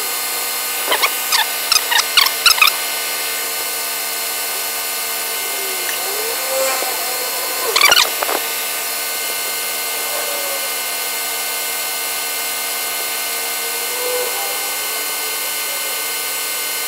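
2004 Mitsubishi Lancer's 4G18 engine idling as it warms up, played back at eight times speed so it comes out as a steady high-pitched whine. A few short chirps stand out about one to three seconds in and again around eight seconds.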